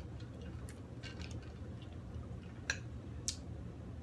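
People chewing food, with faint wet mouth crackles and two sharp clicks late on, over a steady low room hum.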